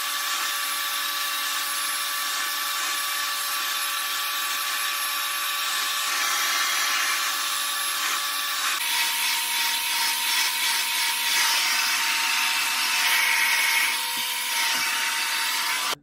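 Revair reverse-air hair dryer running steadily: a motor whine over a rush of air, its pitch stepping down slightly about nine seconds in.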